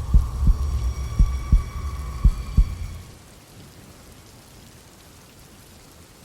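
Heartbeat sound effect: three deep double thumps over a low rumble, with a faint ringing tone, ending about three seconds in. Steady rain continues alone after that.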